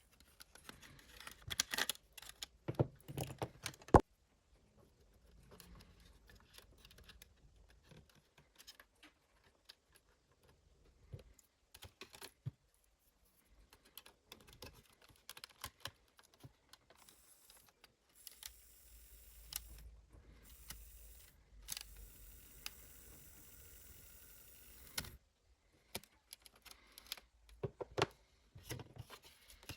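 Small clicks, taps and rattles of hands and tools working on an old cassette player's plastic casing and small parts, with a sharp click about four seconds in.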